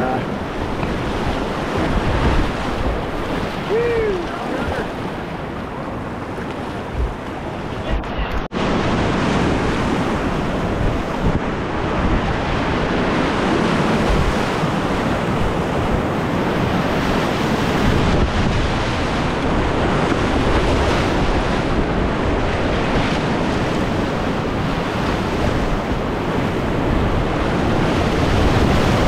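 Rushing whitewater of river rapids, a loud, steady hiss of moving water. After a momentary break about eight seconds in, it is a little louder.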